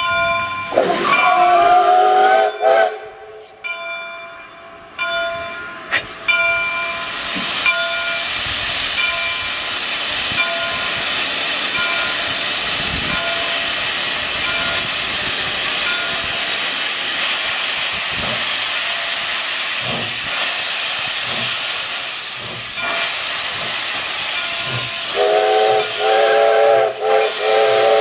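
Steam locomotive CP 3716, a 2-8-0, sounds its chime whistle, which slides into pitch as it opens, while its bell rings. Then a loud steady hiss of steam blows from the open cylinder cocks. Near the end the whistle sounds again.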